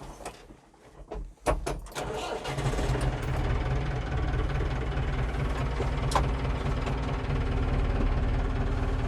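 Landini Blizzard 65 tractor's diesel engine being started: a short spell of cranking about a second and a half in, then the engine catches and settles into a steady idle.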